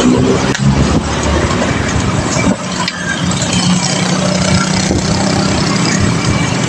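Road traffic heard from a moving bicycle: a nearby motor vehicle engine running steadily over a constant rush of road and wind noise.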